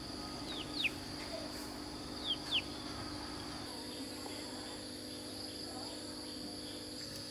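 Steady high-pitched drone of insects, with two pairs of short, falling bird chirps in the first three seconds.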